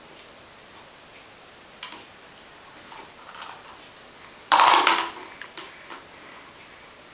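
Ball being knocked about inside a plastic cat toy: scattered light clicks and taps, with one loud clattering rattle about four and a half seconds in that lasts under a second.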